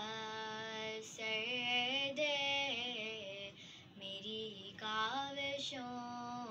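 A girl's solo singing voice sustaining the refrain of an Urdu devotional dua, in long held notes that waver and glide between pitches, with brief breaths between phrases.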